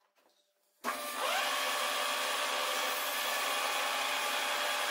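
Metal lathe starting up about a second in, a whine rising in pitch as the spindle comes up to speed, then running steadily with a mechanical whine and rattle.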